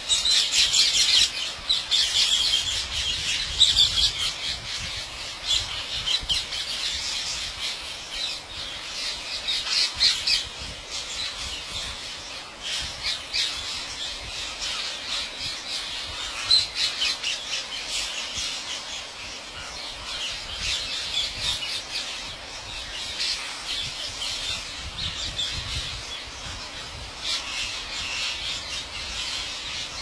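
A large flock of rose-ringed parakeets calling all at once, a dense, unbroken chorus of shrill squawks, loudest in the first few seconds.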